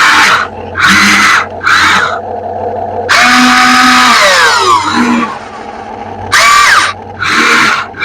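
RC excavator's motors and hydraulics whining in repeated short bursts as the machine works, the pitch sliding up and down with each movement and one longer burst falling in pitch.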